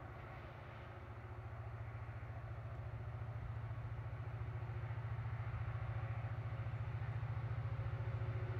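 An engine running at a steady pitch, a low pulsing drone that grows louder over the first few seconds and then holds.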